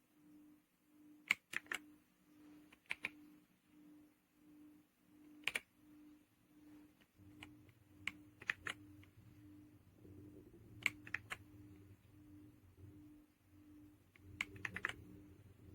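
Keys being pressed on an RK Royal Kludge R75 mechanical keyboard with silver switches: short clusters of two to four sharp key clicks every second or two, with pauses between. A faint low hum runs underneath, growing a little from about halfway through.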